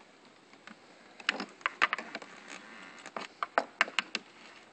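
A wrench working a nut on a footrest lift: a run of light, irregular clicks and taps as the nut is loosened.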